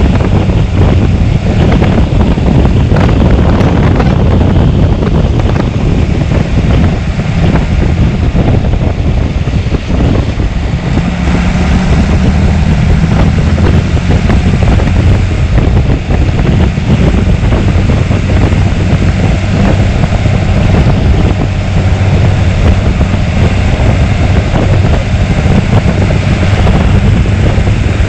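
John Deere 3350's six-cylinder 6.6-litre diesel engine running steadily, with wind noise on the microphone.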